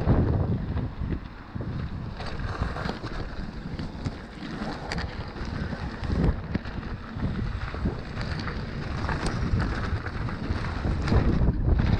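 Wind buffeting the microphone of a camera riding on an electric mountain bike: a heavy, uneven rumble. Scattered knocks and rattles come from the bike going over rough trail.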